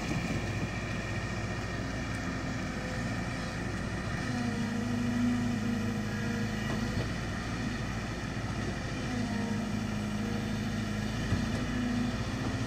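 Kobelco hydraulic excavator's diesel engine running steadily while it digs. Its low note grows stronger about four seconds in, dips briefly near the middle, then picks up again.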